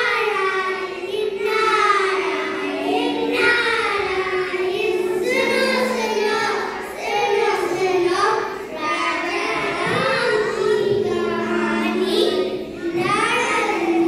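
A group of children singing a song together, with sustained melodic lines and held notes.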